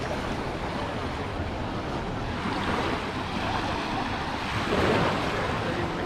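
Small sea waves lapping and washing up onto a fine-pebble shoreline in a steady hiss, with one wash coming in louder about five seconds in. Faint voices of bathers lie underneath.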